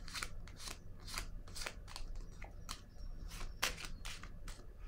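A deck of tarot cards being shuffled and handled by hand: an irregular series of soft, crisp papery snaps, about three a second.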